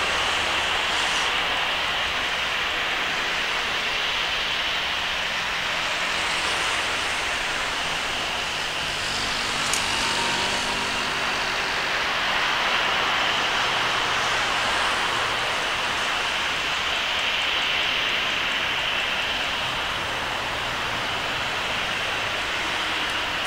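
Distant CFM56 jet engines of a Boeing 737-400 freighter on final approach: a steady rushing roar with a high whine over it.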